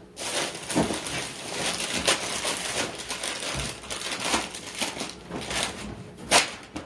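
Dense, continuous crinkling and crackling of something being handled, with a sharper crack near the end.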